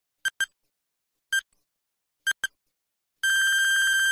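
Quiz countdown timer sound effect: short electronic beeps about once a second, some doubled, then a longer buzzing tone about three seconds in as time runs out, which cuts off suddenly.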